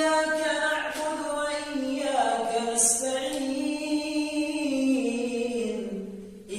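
A male voice reciting the Qur'an in melodic tajweed style, unaccompanied, with no microphone or added effects. He holds one long drawn-out phrase that steps slowly between pitches and ends near the end.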